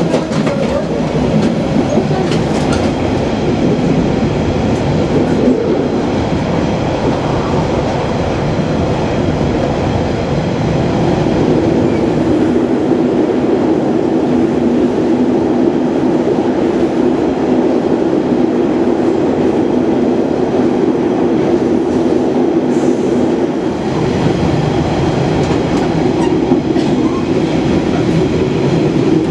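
Diesel railcar running, heard from inside the car: a steady rumble of the wheels on the track under the diesel engine's noise. For a stretch in the middle the engine settles into a steadier drone.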